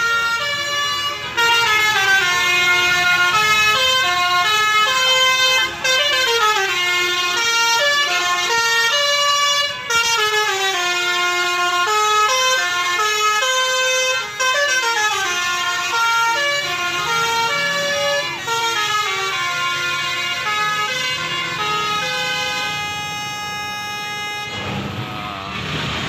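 A tour bus's basuri multi-tone air horn, the Indonesian "telolet" horn, plays a melody of stepping notes with a few brief breaks. It ends on several longer held notes.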